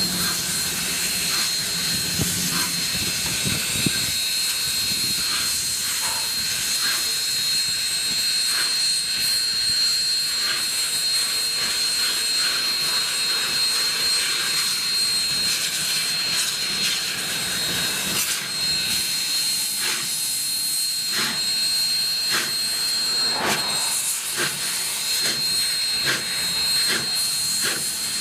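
Steady hiss of steam from Union Pacific 4-8-4 steam locomotive No. 844 running at speed, with a thin high whine over it and frequent short clicks.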